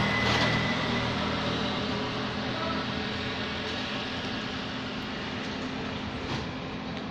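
A motor vehicle's engine running steadily on the street, with a low hum and road noise that fade gradually as it moves away.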